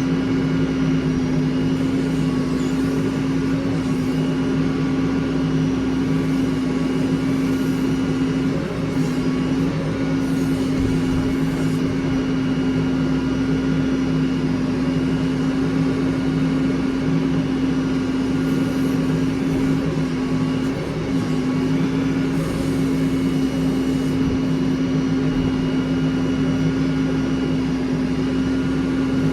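Heavy vehicle engine running steadily at a constant speed, with a steady drone and only brief slight dips in level.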